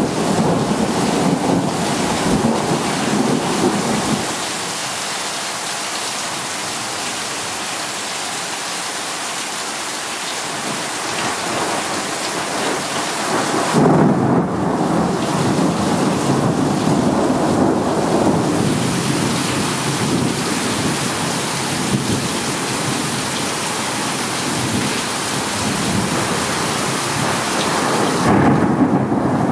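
Heavy monsoon rain pouring steadily, with thunder rumbling. The rumble fades after about four seconds and comes back suddenly and loudly about fourteen seconds in, rolling on to the end.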